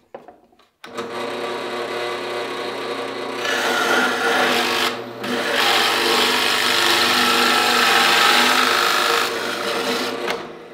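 Harbor Freight drill press switched on about a second in and running at about 1600 RPM, its dull bit boring into a clamped wood block with a rough cutting noise. The bit is briefly lifted out around the middle, then fed in again, and the press is switched off near the end.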